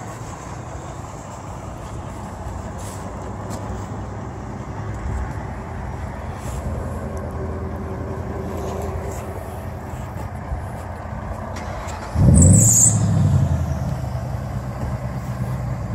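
Chevy Trailblazer's engine running as the SUV drives off over grass and mud, with a sudden louder rev about three-quarters of the way through, joined by a brief high hiss, then easing back down.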